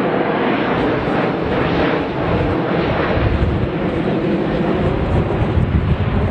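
Airbus A350 jet airliner's engines making a steady rushing noise as it flies, with the low rumble growing stronger in the second half.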